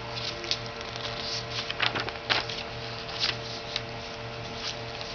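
Sheets of paper rustling and crinkling as they are handled and turned, in several short crackles, the loudest about two seconds in.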